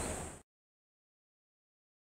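Steady outdoor ambient hiss that fades out within the first half second, then complete silence.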